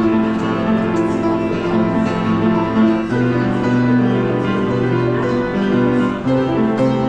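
Upright piano being played: long held chords over low bass notes that change about once a second.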